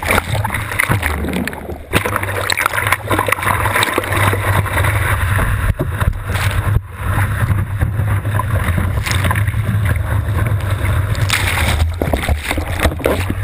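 Ocean surf rushing and splashing over a GoPro's waterproof housing on a surfboard's nose, with a steady low rumble and bubbling as the camera dips through the water. The sound breaks off abruptly a couple of times.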